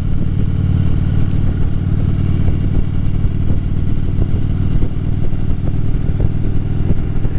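Harley-Davidson motorcycle's V-twin engine running at a steady speed while riding.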